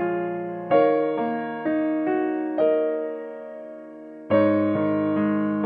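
Slow, gentle background piano music: single struck notes that ring and fade, one every half second or so, then a fuller chord about four seconds in.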